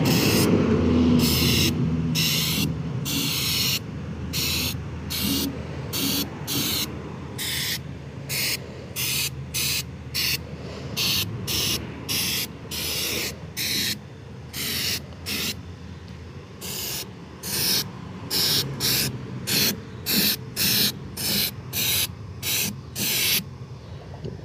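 Aerosol can of truck bed coating sprayed onto a vehicle frame as undercoating, in many short hissing bursts at about one or two a second; the spraying stops shortly before the end. A low rumble runs underneath for the first few seconds.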